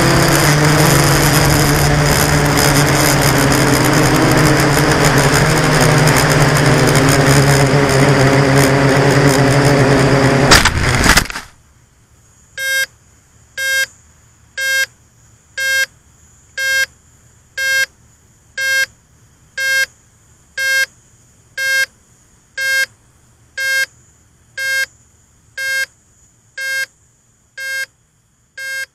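Blade 350 QX quadcopter's electric motors and propellers running, close to the on-board camera. About ten seconds in comes a sharp knock, the loudest moment, and the motors cut out suddenly as the drone comes down. After that the quadcopter beeps steadily, short beeps about once a second.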